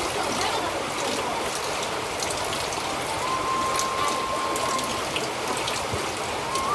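Steady hiss of rain or running water with scattered light ticks, and a thin, held whistle-like tone that comes in about halfway through.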